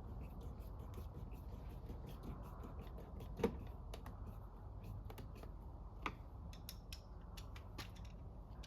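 Faint clicks and ticks of screws being driven back into a plastic door trim panel with a screwdriver, with a sharper knock about three and a half seconds in and another about six seconds in.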